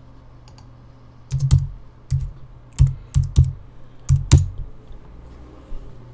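Typing on a computer keyboard: about ten keystrokes in uneven clusters, the loudest from one to four and a half seconds in, over a steady low hum.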